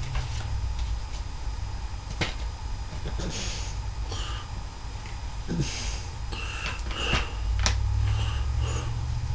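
Plastic DVD case being handled: several sharp clicks and short rustles, over a steady low hum.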